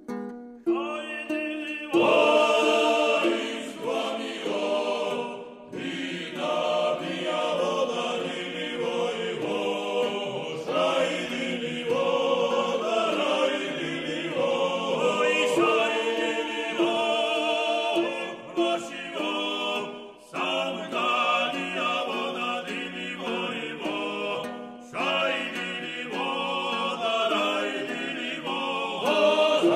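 Background music: a choir singing in several voices, entering about two seconds in after a few plucked-string notes.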